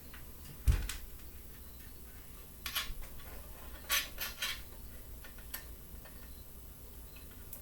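Hands working on the assembled laser engraver's cabling. There is a single low thump a little under a second in, then short bursts of clicking and rattling around three and four seconds in, and a lone click a little later.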